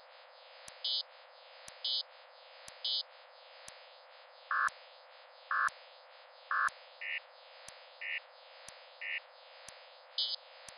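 Image-to-sound soundscape from The vOICe sensory-substitution system. A click about once a second starts each scan. A short electronic tone follows; its pitch gives the square's height on the screen and its delay after the click gives the left-right position, over a faint steady hiss of tones. The tone repeats three times at one pitch, then jumps as the square moves: high at first, then lower and louder, then middle, then high again near the end.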